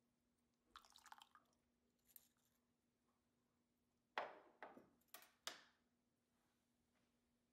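Faint handling of a small cup scooping the soybeans' cooking water from the pressure-cooker pot: a short crackle about a second in, then four sharp short clinks and splashes of the water, each fading quickly.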